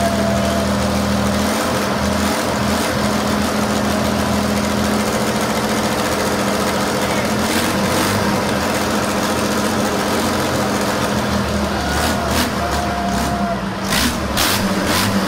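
Engine idling steadily, with a few sharp clicks near the end.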